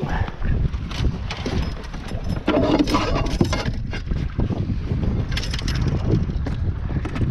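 Wind buffeting the microphone in an open fishing boat as a steady low rumble, with scattered knocks and clicks of handling on the boat.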